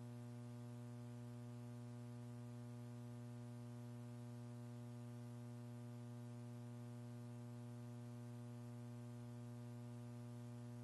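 Faint, steady electrical mains hum with a stack of buzzy overtones on the commentary audio feed, unchanging throughout.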